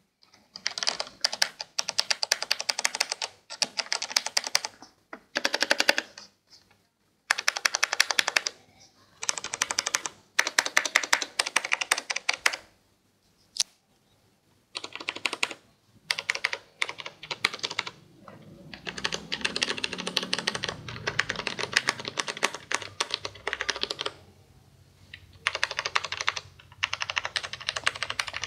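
Razer BlackWidow Stealth Edition mechanical keyboard with Cherry MX Brown switches being typed on: quick runs of key clicks lasting a second or two, broken by short pauses.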